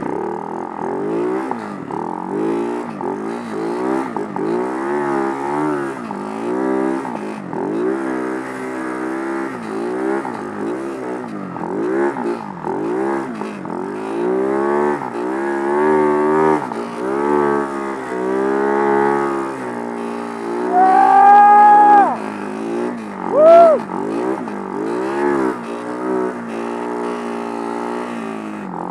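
Husaberg 570 snow bike's single-cylinder four-stroke engine working hard on a steep climb, revving up and down about once a second as the throttle is worked. Two louder, higher-pitched rises come about three-quarters of the way through.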